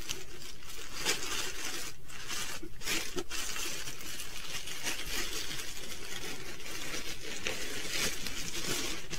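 Rustling and crinkling of plastic packaging and clothing being handled, with many small irregular crackles.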